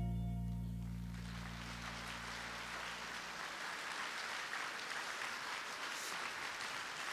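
The song's last sustained chord fades out as audience applause starts about a second in and carries on steadily.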